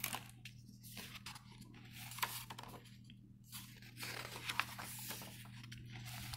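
Pages of a picture book being turned and handled, the paper rustling and flapping in several short bursts.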